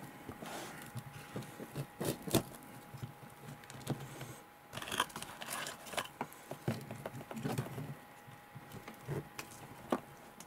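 Kitchen knife cutting through the crisp fried coating of Chicken McNuggets on a cutting board: irregular crackles and light taps of the blade against the board, coming every second or so.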